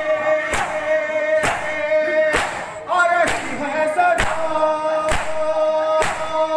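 A male nauha (Shia lament) sung through a PA microphone, with the mourners chanting along, over the crowd's matam: palms beating on bare chests together in a steady rhythm about once a second.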